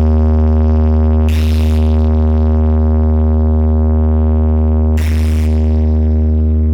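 A sustained deep electronic bass tone held steady and loud, a sound-check vibration tone with overtones above it, crossed by a short whoosh effect about a second in and another near the end.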